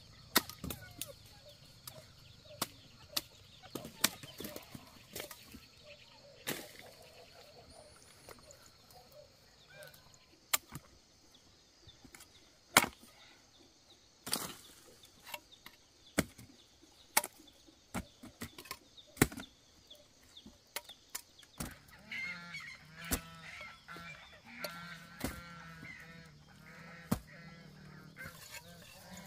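Machete blade chopping cassava roots off their woody stems: sharp single chops at irregular intervals, with knocks of roots landing. Near the end, a run of repeated animal calls joins in.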